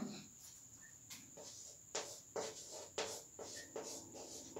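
Chalk writing on a blackboard: a series of faint, short scratching strokes and taps, starting about a second in.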